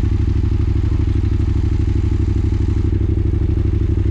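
Engine-swapped Yamaha Raptor quad idling steadily with an even, fast beat.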